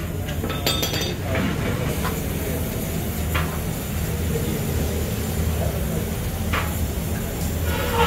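A handful of scattered light metallic clinks and taps from metal parts and tools being handled during radiator repair work, over a steady low workshop hum.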